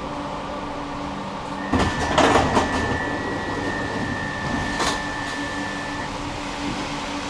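Tram running with a steady low hum from its drive equipment. About two seconds in comes a short clatter, then a steady high tone that lasts about four seconds, with a single knock near its end.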